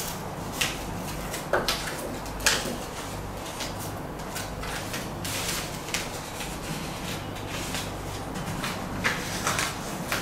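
Scattered short knocks, rips and rustles of hands working tape and flexible ducting against a window frame, the sharpest about two and a half seconds in, over a steady low hum.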